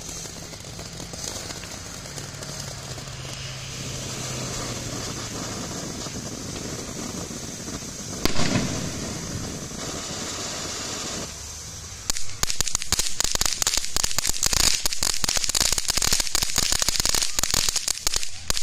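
Great Grizzly Unicorn Fountain, a ground fountain firework, hissing steadily as it sprays sparks, with one sharp pop about eight seconds in. About twelve seconds in it switches to dense, rapid crackling, which stops abruptly near the end.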